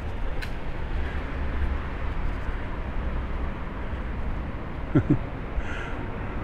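Outdoor town ambience with a steady low rumble. Two quick thumps come about five seconds in.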